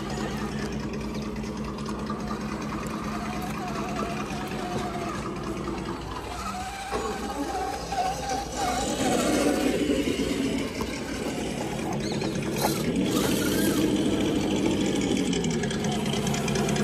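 Radio-controlled scale crawler trucks driving through a shallow rocky creek: a steady motor hum that glides up and back down in pitch near the end as the throttle changes.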